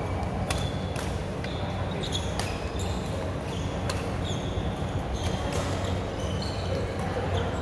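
Badminton rally: sharp racket hits on the shuttlecock at irregular intervals, with short high squeaks of court shoes on the floor. A steady low hum runs underneath.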